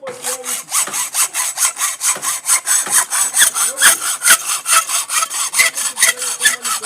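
Hacksaw cutting a galvanized iron pipe, in rapid, even strokes of about five a second.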